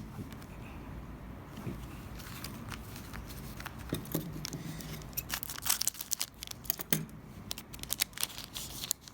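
Foil trading-card pack wrapper being torn open and crinkled by hand. A few scattered crackles at first, then a dense run of sharp crackles through the second half.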